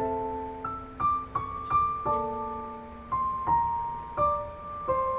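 Soft solo piano music: a slow melody of single struck notes, each fading away as the next comes in.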